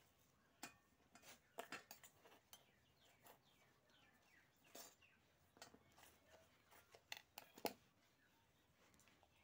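Metal spoons clinking and scraping against stainless steel bowls while a damp powder mix is stirred: scattered sharp clicks, the loudest pair near the end.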